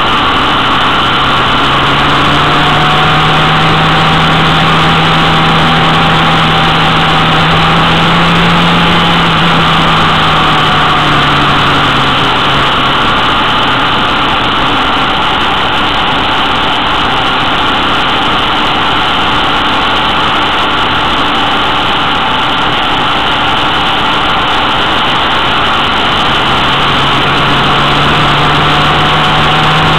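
Motorcycle engine running at steady road speed, its pitch rising slightly and easing off, under a loud, constant rush of wind on the microphone.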